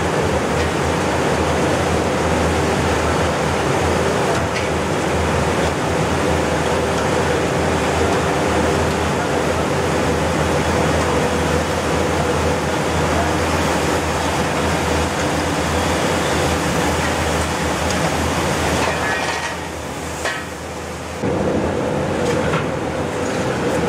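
Loud steady rush of forced air with a hum, from the blower that drives air up through the perforated floor of a paddy drying bin. It dips for about two seconds near the end, then carries on.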